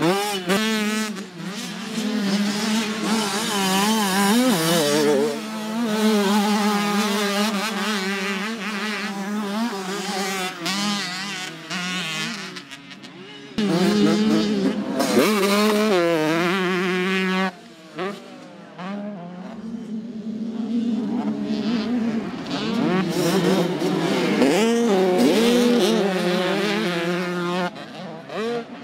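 Motocross dirt bike engines racing, their pitch rising and falling with the throttle as two or more bikes go through corners and over jumps. The sound changes abruptly several times and drops off briefly twice.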